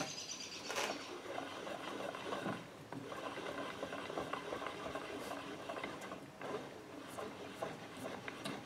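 Threaded lead screw of a homemade drill-press XY slide table being cranked by hand with vise grips, the screw turning in its nut and the table sliding on its steel guides with a faint continuous scraping and a few louder clicks.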